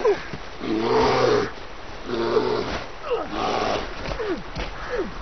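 A bear growling and roaring in several calls of about a second each, with short falling sweeps between them.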